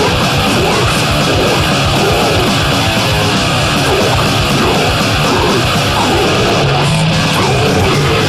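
Loud, dense heavy metal: distorted guitars over drums in a continuous wall of sound, with harsh yelled vocals.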